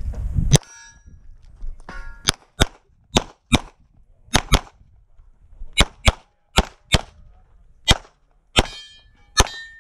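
Glock 17 9mm pistol firing a fast string of about fifteen shots, mostly in quick pairs. After several of the shots, steel targets clang and ring briefly.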